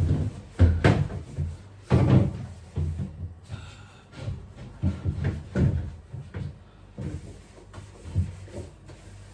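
Knocks and clatter of refrigerator fittings being handled and bumped during cleaning, a run of sharp knocks in the first couple of seconds, then fewer and fainter ones.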